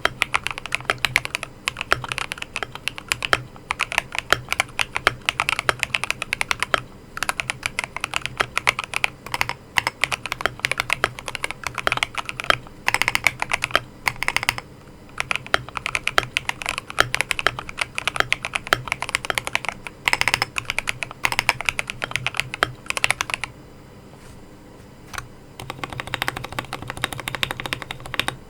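Akko Mod005 mechanical keyboard with Akko CS Jelly White linear switches being typed on in quick, continuous runs of keystrokes, broken by a few short pauses and a longer pause of about two seconds near the end.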